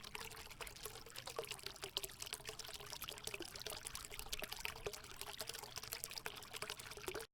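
Liquid being poured in a steady stream, with a trickling, crackly splash throughout, cutting off suddenly near the end.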